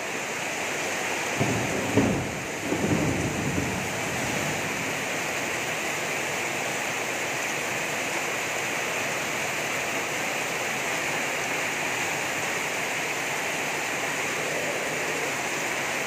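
Heavy tropical downpour falling steadily, with a clap of thunder about two seconds in that rumbles on for a second or so before the rain alone remains.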